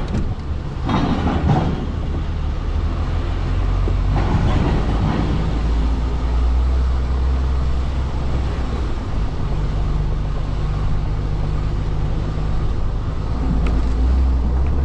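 Articulated lorry's diesel engine running under light load as it rolls slowly off a ferry across a steel linkspan ramp, a steady low rumble heard from inside the cab. A few knocks in the first seconds as the wheels cross the ramp plates, and the engine note strengthens near the end as it drives onto the road.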